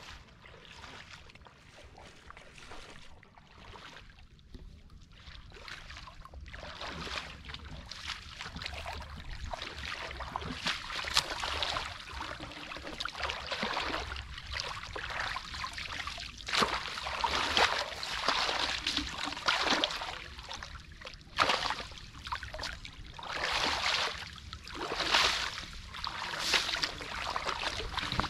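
Shallow floodwater splashing and sloshing in irregular swells. It is faint at first and grows louder from about six seconds in.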